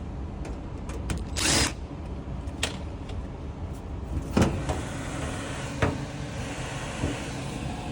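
A few sharp knocks and clicks over a steady low rumble, with a short scraping burst about a second and a half in.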